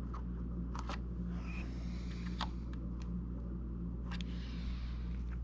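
Steady low hum with a few faint, light clicks and taps from a DDR5 RAM stick and motherboard being handled.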